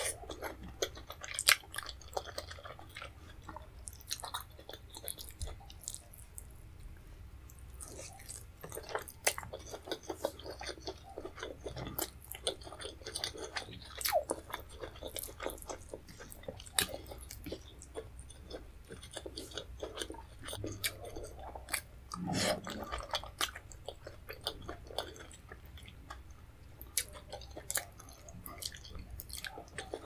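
Close-miked chewing of fufu and vegetable soup eaten by hand, with many small mouth clicks and smacks throughout and a fuller mouth noise about two-thirds of the way through.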